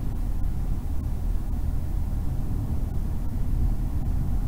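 Car cabin noise at about 64 to 68 mph under light acceleration: a steady low road and wind rumble. The differential whine, near 600 Hz, is buried in it and very hard to hear.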